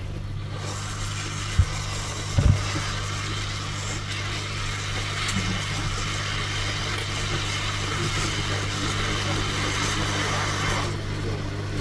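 Hot-air rework station blowing a steady hiss of air, as used to desolder the charging IC from a laptop motherboard; it comes on shortly after the start and cuts off near the end. A steady low electrical hum runs beneath, with two short clicks in the first few seconds.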